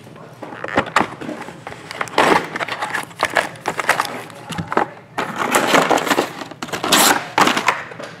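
Foil trading-card packs rustling and crinkling as they are pulled out of a cardboard hobby box and stacked, with sharp taps and knocks from the packs and box.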